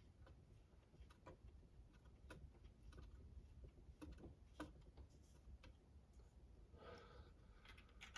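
Near silence with a few faint, scattered clicks and taps of small bolts and hand tools being handled.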